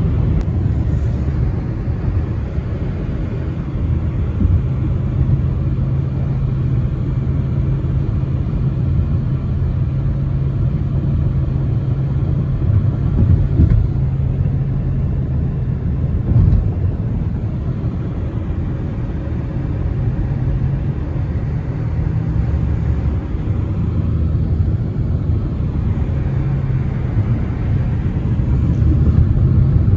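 Car running with a steady low rumble of engine and road noise.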